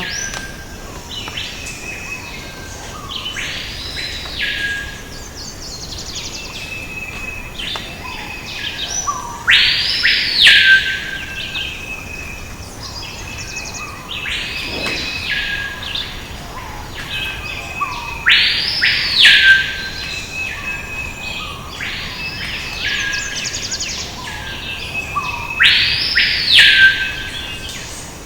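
Birds singing in a steady chorus of high chirps and whistles. A loud phrase of arching whistles, each rising and then falling, comes back about every eight seconds.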